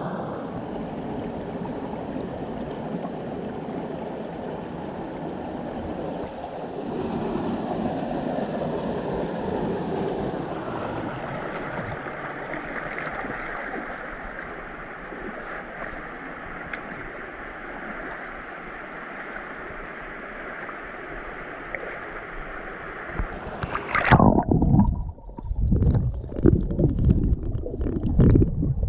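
Steady rush of creek water. About 24 seconds in it changes suddenly to muffled, uneven gurgling and thumping, louder than the rushing and with the highs gone.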